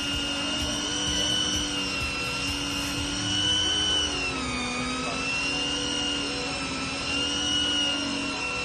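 Electric fishing reel's motor winding in line with a steady whine. Its pitch sags about four seconds in, then comes back up.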